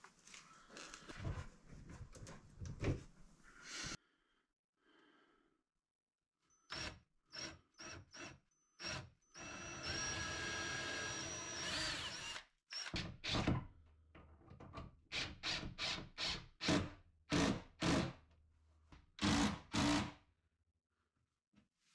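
Handling clatter of bar clamps on the wooden cabinet. Then a cordless drill drills into the cabinet frame: a few short trigger pulses, a steady run of about three seconds with a motor whine, and a string of short bursts near the end.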